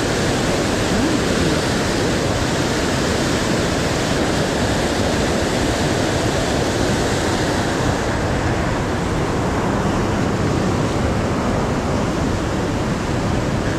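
Steady, loud rush of a river in flood, its high water churning through rapids.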